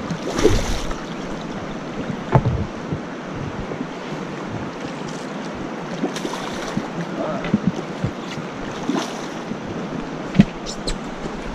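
Fast river current rushing and swirling around a boat, a steady wash of water, with a few short sharp knocks, the loudest about ten seconds in.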